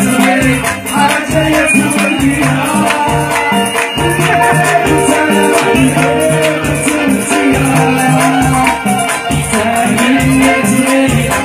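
Loud band music with a steady pulsing beat, shaken rattle-like percussion and a melodic instrument line.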